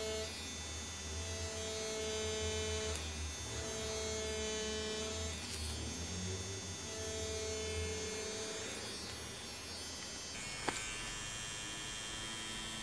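DragonHawk Mast Archer wireless rotary tattoo machine running with a steady electric hum as its needle pulls lines into fake skin. Its tone shifts in stretches of a couple of seconds as strokes start and stop, and there is a single sharp click near the end.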